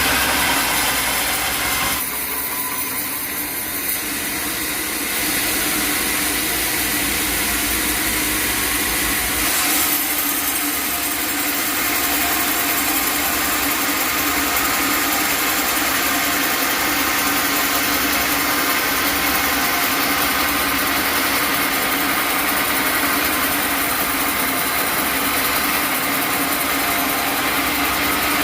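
Sawmill machinery running steadily, an engine-driven saw, with the sound changing about two seconds in and again about ten seconds in.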